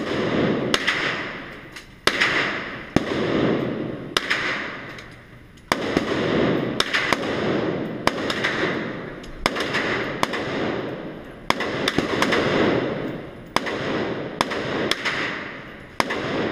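Single gunshots fired one after another at an uneven pace, roughly one a second. Each shot rings on with a long echo off the walls of an enclosed indoor shooting range.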